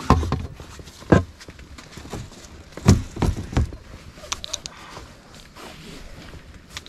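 Handling noises in an inflatable boat: rustling with scattered knocks and bumps as fishing gear is moved about, the sharpest about a second in and around three seconds in, and a quick run of light clicks a little after four seconds.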